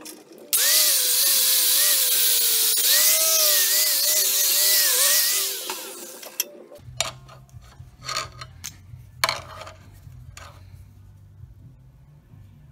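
A power tool working a steel horseshoe clamped in a vise, its whine dipping and recovering again and again as it bears into the metal, for about five seconds before winding down. After it come a few light clinks and a low steady hum.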